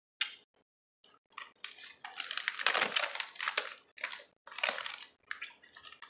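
Plastic Doritos chip bag crinkling and rustling as a hand reaches in and pulls out a chip: a short crackle just after the start, then a dense run of crinkles, loudest in the middle.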